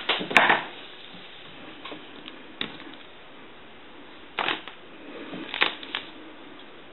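Scattered light clicks and knocks from handling small tools and parts during bench work on a telephone's wiring: a cluster near the start, a single click about two and a half seconds in, and a few more around four and a half and six seconds in.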